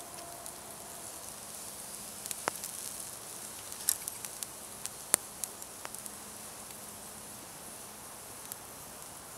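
Pork chops sizzling on a wire grill over hot coals: a steady high hiss, with scattered sharp pops and crackles.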